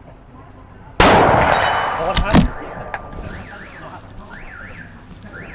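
A single shot from a Ruger Precision Rifle in .308, a sudden loud crack about a second in that echoes and fades over about two seconds, with a second sharp crack about a second and a half later. From about three seconds in, an alarm wails repeatedly up and down in pitch.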